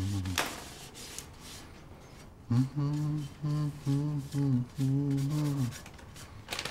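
A man humming a slow tune in held notes. He breaks off just after the start and picks the melody up again about two and a half seconds in for several more notes.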